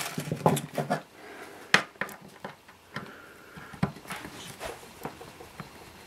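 Handling noise: irregular clicks, taps and knocks as parts and tools are moved about, with a cluster of quick taps in the first second and a sharper knock a little under two seconds in.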